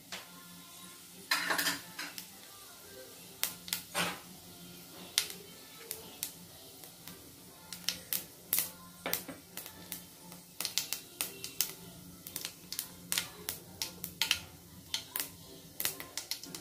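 Fennel seeds and whole spices crackling and popping in hot oil in a kadai: sharp, irregular pops that come more often in the second half. This is the tempering spluttering, the sign that the oil is hot and the spices are fried.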